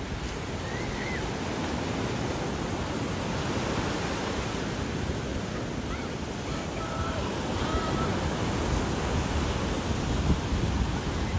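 Ocean surf breaking and washing up the beach: a steady, churning rush of rough, foamy waves.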